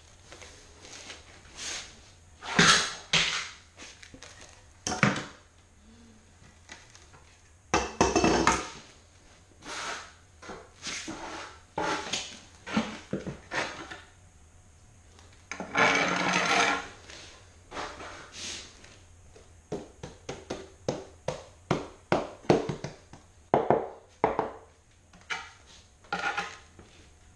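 Floor tiling work: a large tile and a margin trowel knocking, clicking and scraping as the tile is pressed into thinset mortar and lifted back out. There is one heavy thud about a third of the way in, a second-long scrape past the middle, and a run of quick taps near the end.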